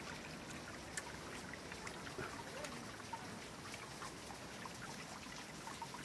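Steady rush of water falling at a waterfall, with a few faint clicks.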